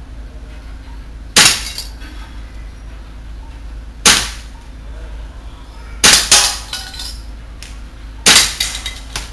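BB pellets striking small metal can-lid targets on a tiled floor: four or five sharp metallic hits, the struck lids clattering and ringing as they fall. The second and third hits come in quick succession.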